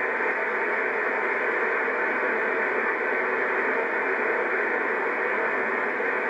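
Steady rushing of fast river water, heard through an old VHS camcorder's microphone as an even, muffled hiss with no separate splashes.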